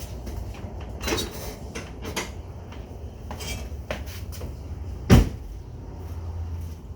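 Ram 1500 pickup's engine idling with a low steady rumble through an exhaust fitted with an electric cutout valve. Several light knocks and clacks come over it, and a single loud thump comes about five seconds in.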